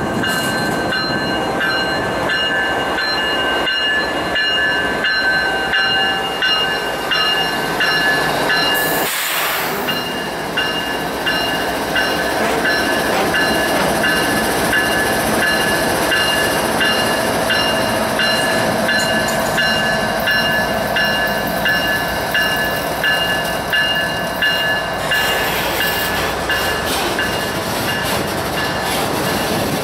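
Kansas City Southern freight train rolling steadily, with several steady high-pitched ringing tones held over the running noise; the sound changes abruptly about nine seconds in.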